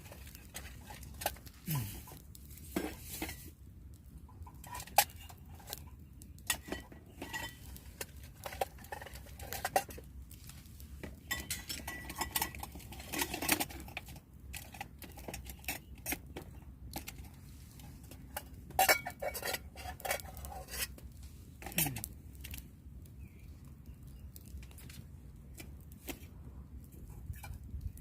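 Metal cookware and cutlery being handled: irregular light knocks, clinks and scrapes, some with a brief metallic ring.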